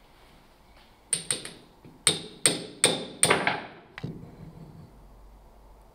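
Sharp metallic clinks, about seven in quick succession over two and a half seconds, each with a short bright ring: steel parts of a 1956 Bilstein car jack (the bevel gear, shaft and flat bracket) knocking together as they are handled and the bracket is worked off the shaft.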